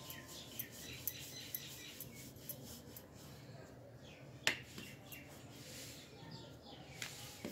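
Wooden rolling pin clicking and knocking against the rolling board as thin roti dough is rolled out, in irregular light clicks with one louder knock about four and a half seconds in.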